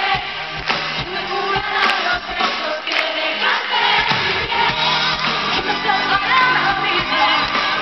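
Live pop-rock band playing at a concert, heard from within the audience, with the crowd singing along. The bass and drums thin out briefly and the full band comes back in about four seconds in.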